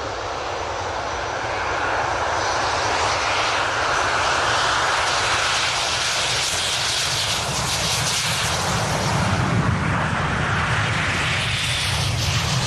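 Formation of seven BAE Hawk T1 jets flying past, their Rolls-Royce Turbomeca Adour turbofans making a jet roar that builds over the first few seconds with a strong hiss, then deepens into a heavy rumble in the second half.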